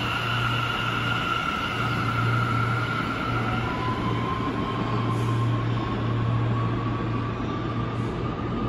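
New York City subway train running with a steady low hum and a high whine; about four seconds in, a new whine starts and slowly rises in pitch.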